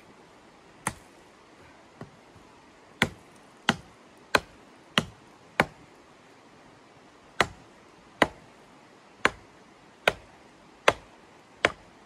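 Small hatchet chopping kindling: about a dozen sharp knocks of the blade into wood, in two quick runs with a pause of about two seconds between them.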